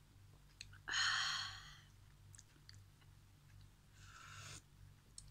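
Slurping noodle-soup broth from a metal spoon: one loud slurp about a second in and a softer one near the end, with a few faint clicks between.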